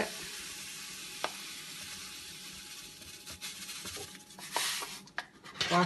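Granulated sugar pouring from a glass measuring jug into a pot of milk and water: a steady sandy hiss that slowly fades. A second short pour comes about four and a half seconds in.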